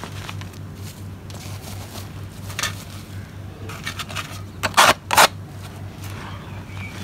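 Dry, powdery soil with small hard lumps being crumbled and pressed by hand: soft crackling and sifting, with a few sharp crunches, the loudest two close together about two-thirds of the way through.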